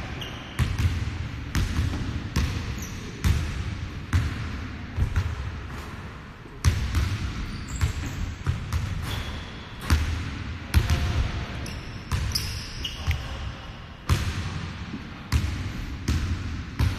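A basketball being dribbled on a hardwood gym floor, a steady run of bounces a little faster than one a second, with a few short high squeaks in between.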